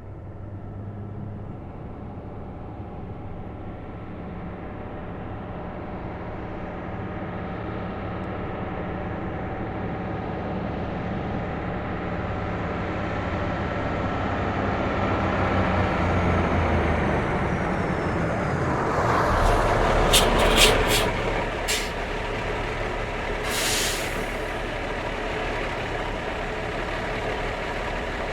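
Semi truck's diesel engine running and growing louder as it slows to a stop, then several quick sharp air-brake hisses about twenty seconds in and one longer hiss a couple of seconds later. The engine then settles into a steady low idle.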